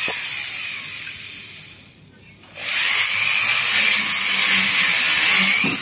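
Handheld electric rotary grinder grinding a metal motorcycle engine part. Its high whine fades away over the first two seconds and nearly stops, then comes back up abruptly about two and a half seconds in and keeps grinding, its pitch dipping and rising with the load.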